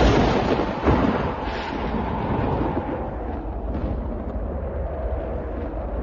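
Thunder: a loud crack right at the start and a second one about a second in, then a long low rumble that rolls on.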